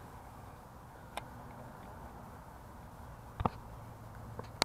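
A few short, sharp clicks and taps from handling a fishing rod and reel: one about a second in, a quick double click about three and a half seconds in, and two more near the end, over a faint steady background hiss.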